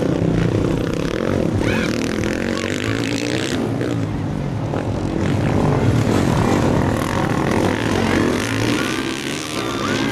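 Several motocross bikes racing past, their engines revving hard with the pitch rising and falling through throttle and gear changes.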